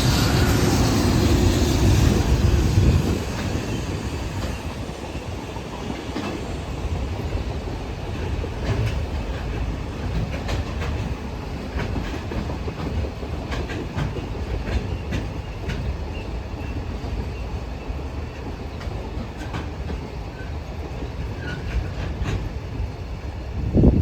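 Freight train passing at speed, loudest in the first three seconds, then a long run of wagons rumbling past with wheels clicking over the rail joints.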